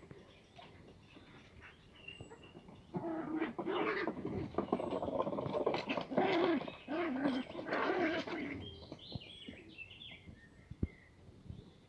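Schipperke puppies calling out in play as they chase each other over a toy, a loud run of repeated, wavering calls starting about three seconds in and dying down after about six seconds.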